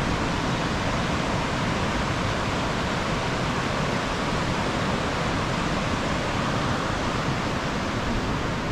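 Steady rush of fast-flowing river water, an even noise with no break or change.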